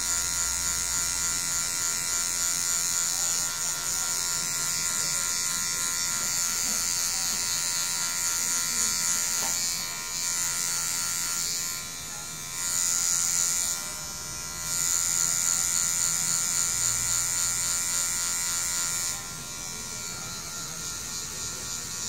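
Cordless electric hair clipper buzzing steadily as it cuts a man's short hair at the sides and nape. It eases off briefly twice around the middle and runs quieter near the end.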